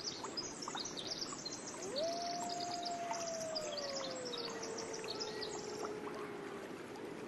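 Outdoor forest ambience: many small birds chirping and trilling over a steady rushing hiss. About two seconds in, a single long wailing call rises quickly, holds, then slowly slides lower over about five seconds.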